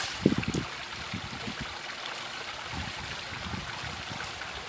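Water from a garden hose nozzle running into a 2-liter plastic bottle, with irregular low gurgles as the bottle fills to the top.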